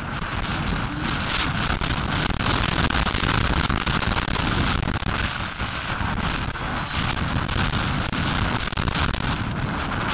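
Suzuki RM250 two-stroke motocross engine running hard under load, with heavy wind buffeting on the microphone covering much of it.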